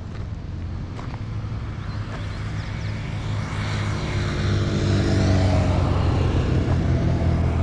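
Road vehicle engine and tyre noise with a steady low rumble, swelling about halfway through as a motor vehicle passes close by, its engine note gliding as it goes.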